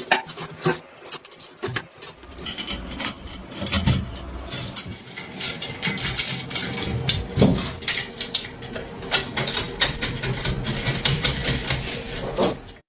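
Irregular metallic clicking and clattering, with dull knocks about four and seven and a half seconds in.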